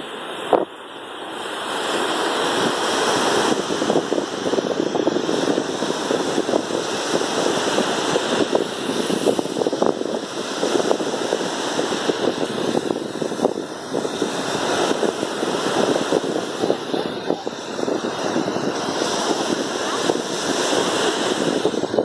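Small waves breaking and washing up a sandy beach, a steady surf wash with wind buffeting the microphone. A brief knock about half a second in.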